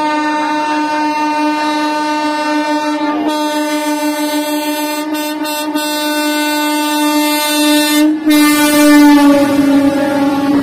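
Sealdah Rajdhani Express locomotive horn held in one long blast as the train approaches, breaking off briefly twice. Near the end the locomotive passes close, the horn drops in pitch and the rush of the train grows loud.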